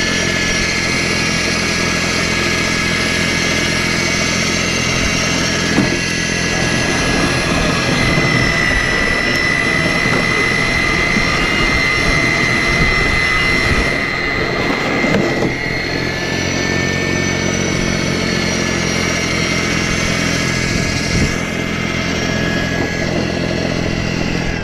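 Battery-powered snowblower running steadily while clearing snow, its electric motor whining at a constant pitch over the churning of the auger and the thrown snow.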